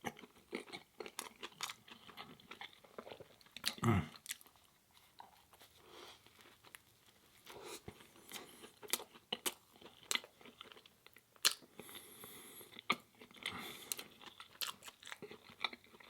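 Close-miked chewing of a plant-based chicken sandwich and fries: a run of short wet mouth clicks and soft crunches, with a brief low hum from the eater about 4 seconds in.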